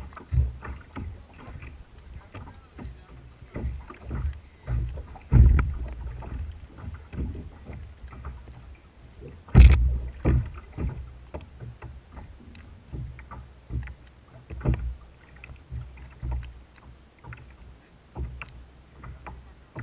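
Small waves slapping against a plastic fishing kayak's hull, giving irregular low thumps, with one sharper, louder knock about ten seconds in.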